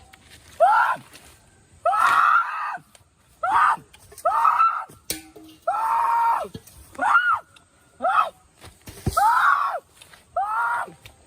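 Repeated shrill cries, each a short wail that rises and falls in pitch, about one a second.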